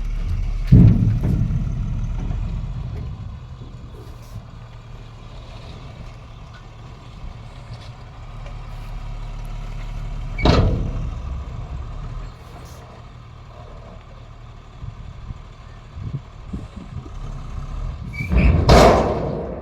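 Heavy diesel engine of earth-moving machinery running low and steady. Three short, loud crashes come about nine seconds apart: about a second in, around the middle, and near the end. They fit an excavator dumping buckets of soil into a tipper truck.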